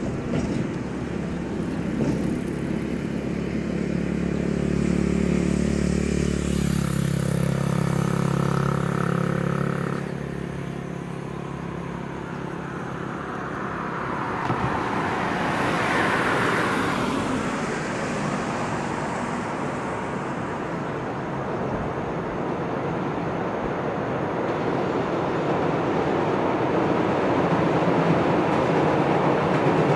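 Vehicle engine hum that shifts in pitch in a step partway through. Then a broad rising-and-falling pass, and a rumble that grows louder toward the end.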